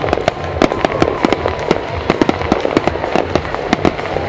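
Aerial fireworks exploding in rapid, irregular sharp cracks and bangs, many a second, from crackling shells bursting overhead. A thin whistling tone runs underneath, sliding slowly lower.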